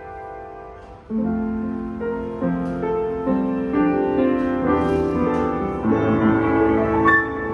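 Yamaha U3A upright piano being played: a chord dies away, then about a second in a flowing passage of chords and melody begins, reaching into the bass.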